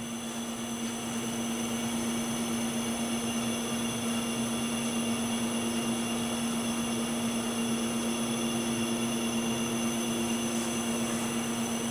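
Steady machine hum with one constant low tone and fainter steady high whines over a hiss, from powered-up shop machinery such as a CNC lathe idling with its control on.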